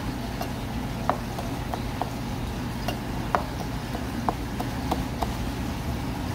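Kitchen knife knocking on a cutting board as gizzard shad is sliced for sashimi: sharp irregular clicks, about two or three a second, over a steady low hum.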